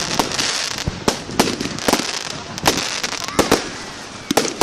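Fireworks display going off: an irregular run of sharp bangs over a continuous crackle that slowly fades.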